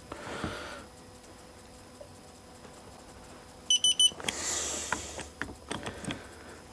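Digital torque screwdriver beeping: a quick run of three short, high-pitched electronic beeps a little before halfway, with rustling handling noise and light clicks of the tool being worked around them.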